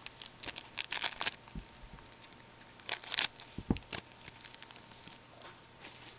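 Foil wrapper of a trading card pack being torn open and crinkled, in two bursts of crackly rustling about two seconds apart, then faint rustles.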